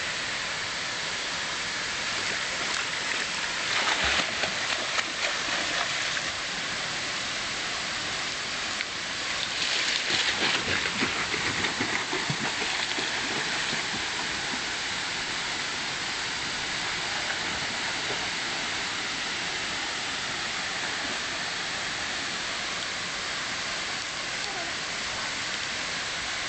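Waterfall pouring into a rock pool, a steady rushing hiss, with two spells of splashing from someone swimming: one about four seconds in and a longer one about ten seconds in.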